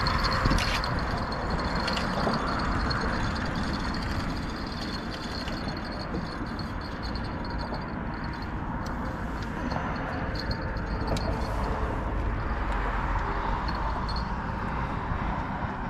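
Steady rumble of road traffic crossing the bridge, with wind on the microphone, under the light clicking of a spinning reel being wound in during the first couple of seconds.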